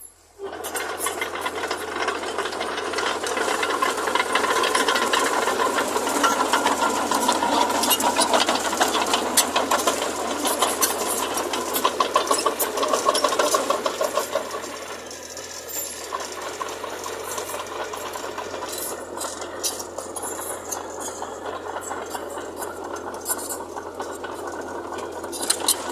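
Diesel earthmoving machinery running with a dense metallic rattle and clatter. It comes in suddenly and grows quieter about fifteen seconds in.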